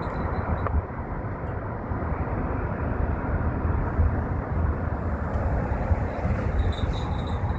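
Steady rumble of a car being driven: engine and road noise, heaviest in the low end.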